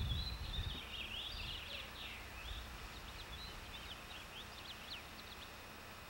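Small birds chirping in quick series of short high notes, with wind rumbling on the microphone in the first second.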